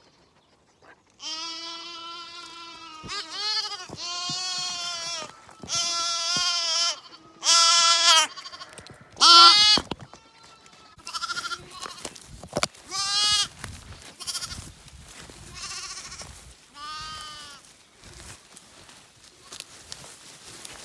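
Several bottle-reared Zwartbles lambs bleating over and over, one long wavering call after another. The loudest calls come in the first half; later the calls are shorter and softer, mixed with light knocks.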